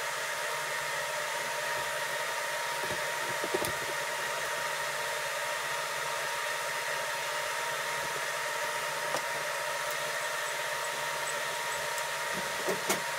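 Steady cooling-fan noise with a thin steady whine from a Svarog REAL ARC-315 welding inverter running under load at about 120 A. A few light clicks sound now and then.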